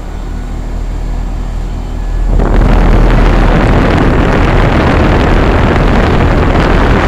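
Bryant Evolution two-stage heat pump outdoor unit running in cooling mode: a steady low compressor hum with the condenser fan. About two seconds in, a loud steady rushing of air comes in suddenly and holds.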